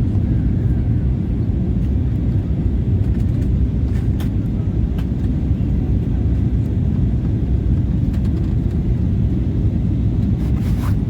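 Steady low rumble of engine and airflow noise inside the cabin of an Airbus A320neo on final approach, with a few faint ticks.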